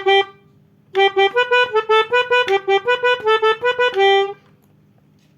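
Pianika (melodica) playing a short note, then after a brief pause a quick run of notes alternating between a few neighbouring pitches, about four or five notes a second. The run ends on a longer held note about four seconds in.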